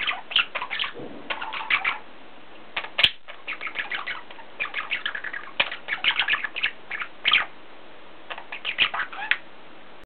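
Budgerigar chattering: runs of quick, short chirps and clicks in bursts, with one sharp click about three seconds in.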